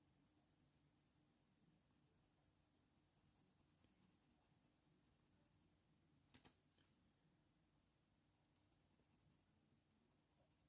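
Near silence with faint strokes of a coloured pencil shading on paper, and one small sharp tap a little past the middle.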